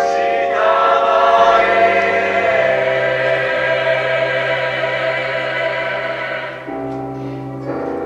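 Gospel choir of mixed men's, women's and children's voices singing, coming in together sharply at the start and holding a long full chord over a steady low note. The chord changes about two thirds of the way through.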